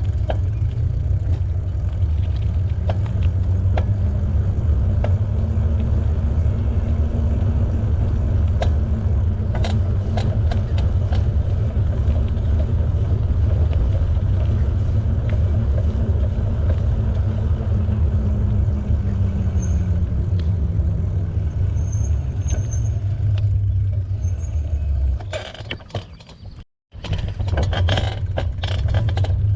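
Wind rumbling on the camera microphone along with tyre noise from a bicycle being ridden on a paved trail, with a faint hum that rises and falls slowly with speed. It eases near the end, breaks off for a moment, and picks up again.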